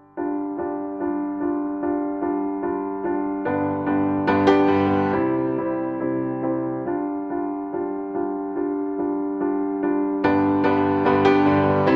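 Background music on piano or electric piano: a repeated note pattern at about two notes a second, with lower chords joining about three and a half seconds in and again near the end.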